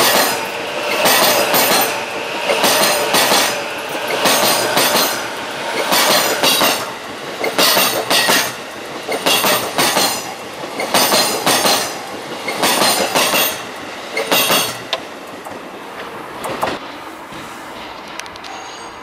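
JR East E233-series electric train rolling past close by, its steel wheels on the rail giving a shrill, high-pitched ringing with each bogie that passes. The bursts come in close pairs about every second and a half to two seconds, then die away after about fifteen seconds as the last car clears.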